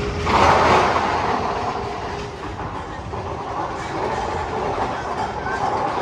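Magnum XL 200 steel coaster train rolling along its track, a steady rumble and clatter that swells loudest about half a second in.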